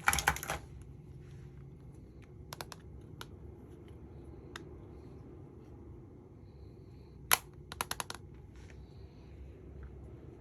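Sharp clicks and taps of small hard makeup cases and packaging being handled, in quick clusters a few seconds apart over a faint steady hum.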